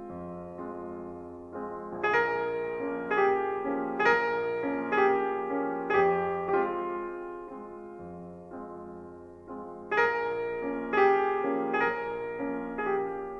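Slow, gentle piano music: notes and chords struck about twice a second, each ringing and fading away. It thins out in the middle and comes back louder about ten seconds in.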